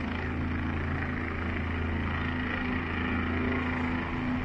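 Helicopter hovering, a steady low drone of its rotor and engine.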